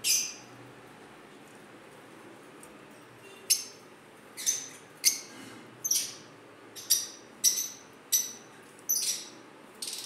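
Caged lovebirds giving short, shrill, high-pitched chirps: one right at the start, then a run of about eight more from about three and a half seconds in, coming a little under a second apart.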